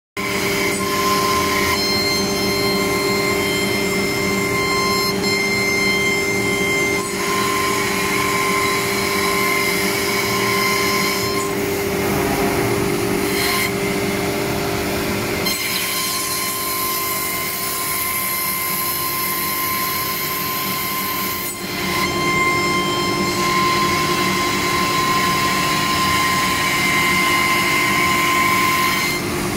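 CNC router spindle cutting a melamine-faced particleboard panel: a loud, steady whine with cutting noise. The sound changes character a few times as the cutter moves along its path, with a hissier stretch in the middle.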